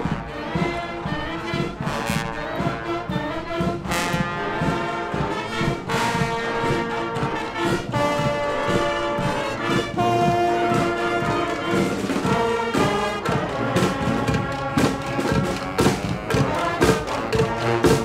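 Street brass band playing on the march: trumpets, trombones and saxophones over a sousaphone, with drums keeping time. The drum strokes stand out more over the last few seconds.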